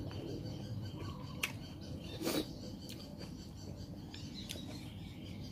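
Eating noises from someone chewing and picking food by hand: a sharp click about a second and a half in and a short, wet mouth smack about two seconds in, over a quiet background.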